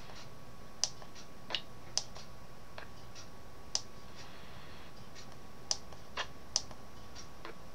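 Button presses on a Radio Shack portable shortwave radio's keypad: about ten sharp, irregularly spaced clicks over a faint steady tone.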